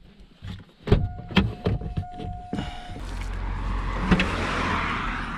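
Handling of a Vauxhall MPV: several sharp clicks and knocks of the door and cabin controls, with a steady electronic tone from the car for about a second and a half. Outdoor noise with a low wind rumble follows, then a single sharp click about four seconds in as the tailgate latch is pulled.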